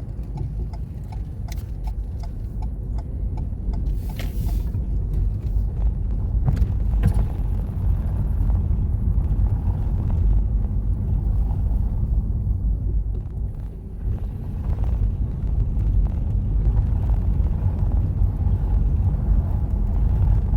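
Steady low road and engine rumble inside a moving car's cabin. The turn-signal indicator ticks evenly for the first few seconds, and there is a short hiss about four seconds in.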